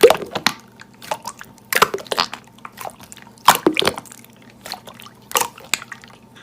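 Slime being squished and poked by hand, giving irregular wet clicks and pops about ten times over a few seconds.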